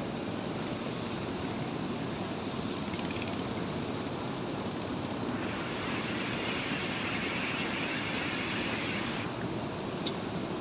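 Steady rush of river water pouring through the dam's opened gates during a pladu flush. A brighter hiss comes in from about five to nine seconds in, and there is one short click near the end.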